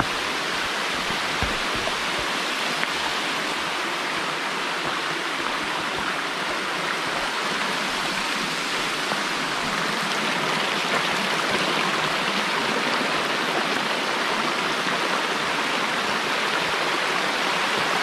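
Water of the Wedenbach brook rushing steadily down a small cascade waterfall over tufa rock.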